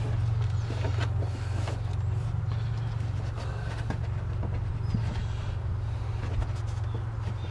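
Small clicks, knocks and rustles of a hand working a rubber radiator hose and its clamp into place, over a steady low rumble.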